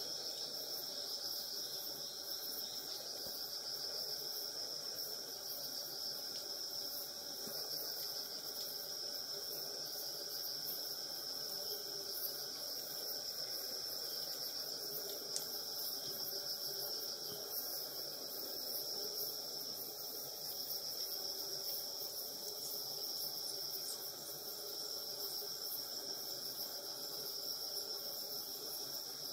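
A steady, high-pitched chorus of insects, drawn out without a break, over a faint low background hum.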